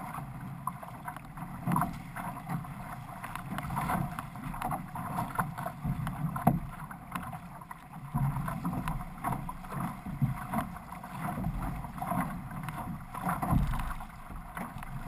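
Water rushing and splashing along an OC6 outrigger canoe's hull and ama as the crew paddles through chop, with the splash of paddle strokes entering the water.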